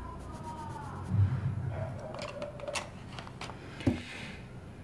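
Coloured pencil scribbling on a printed paper page, crossing out a word in a word-search list, followed by a few light ticks and a tap near the end.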